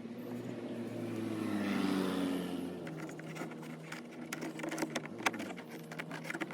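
A motor vehicle engine passing by, swelling to its loudest about two seconds in and then fading, with a slight drop in pitch as it goes. Light clicks and taps follow in the second half.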